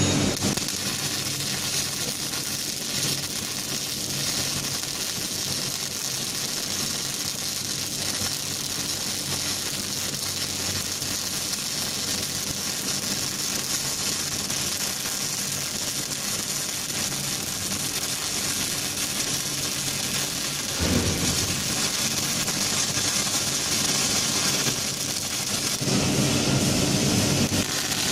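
Robotic MIG welding arc crackling and hissing steadily as the robot's wire-fed torch welds a steel forklift mast. A lower hum swells briefly about three-quarters of the way through and again near the end.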